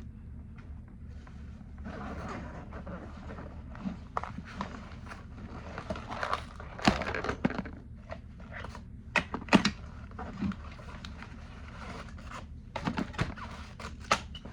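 Rummaging: small objects being picked up, moved and set down, giving scattered clicks, knocks and rustling, with the sharpest knocks about seven and nine and a half seconds in, over a steady low hum.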